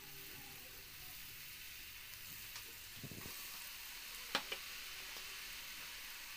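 Rice-flour dough pieces deep-frying in hot oil, a steady sizzle, with a few light spatula knocks against the pan about three and four and a half seconds in.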